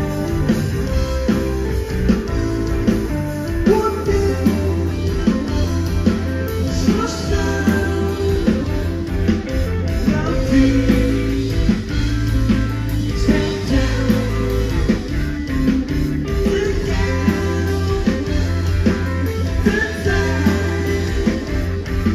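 Live indie/emo rock band playing at full volume: electric guitars over bass and a drum kit keeping a steady beat, heard from within the audience.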